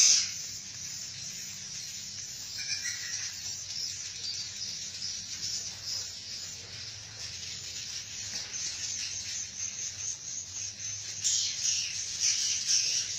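Swiftlets calling with a continuous high, insect-like twittering and chirping, swelling louder near the end.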